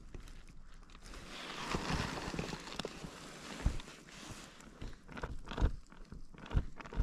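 Irregular crunching footsteps on a rough hill track, a few heavy steps standing out in the second half, with a swell of rushing noise in the first half.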